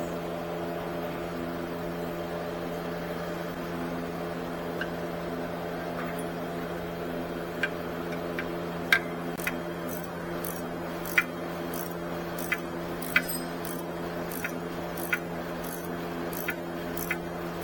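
A steady mechanical hum throughout, with sharp metallic clicks and clinks starting about seven seconds in, roughly one a second at uneven spacing, like hand tools knocking against metal.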